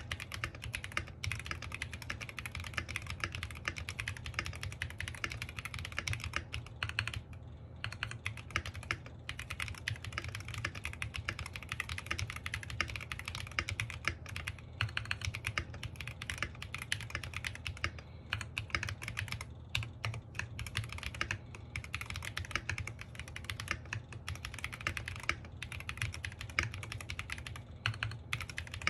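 Fast, continuous typing on an NJ68 Max mechanical keyboard with stock, unlubed Royal Blue switches and pudding keycaps, foam-modded inside. Dense key clicks run on with a few short pauses between bursts.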